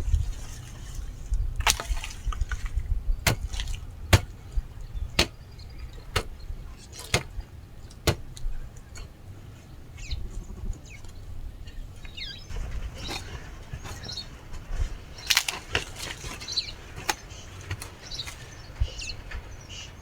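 Sharp knocks or taps at irregular intervals, roughly one a second, over a steady low rumble.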